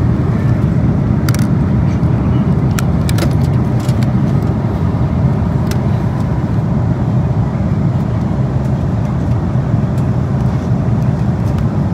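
Steady low rumble of an Airbus A330-200's cabin noise, with a few sharp clicks in the first six seconds as the seat-back remote is handled.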